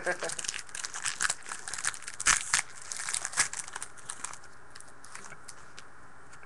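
Plastic wrapper of a trading-card pack crinkling and tearing as it is ripped open, with crackly rustling that stops about four seconds in.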